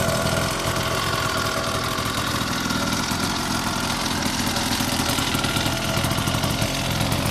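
Small petrol engine of a stand-up scooter idling steadily, with a rapid, even beat.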